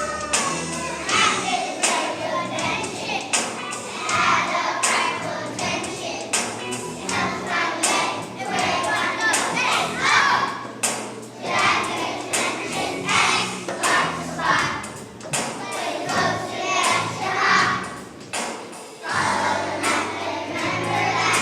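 Kindergarten children singing together as a choir over musical accompaniment with a steady beat.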